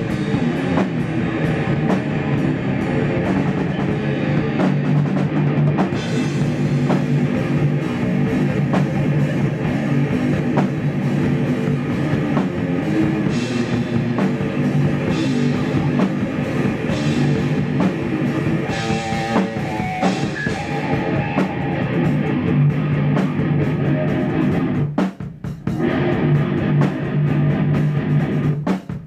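Electric guitar and drum kit playing improvised thrash metal together, dropping out briefly about 25 seconds in and again near the end.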